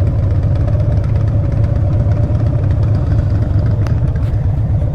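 Harley-Davidson Dyna Street Bob V-twin with Vance & Hines Short Shot exhaust running steadily, a loud, even engine pulse.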